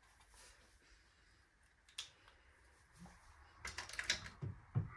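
Faint strokes of a felt-tip marker on paper, one sharp click about two seconds in, then a quick run of light clicks and knocks near the end as the marker is handled and put down.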